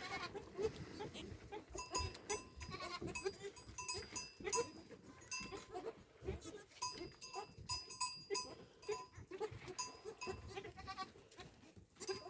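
Small bells on a herd of goats ringing in quick, irregular clinks as the animals move, with goat bleats among them.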